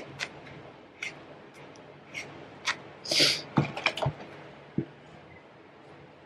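An AirPods retail box being handled and opened on a desk: scattered light taps and knocks of cardboard, a short rustle about three seconds in, a quick run of sharp knocks right after, and a dull thud near five seconds.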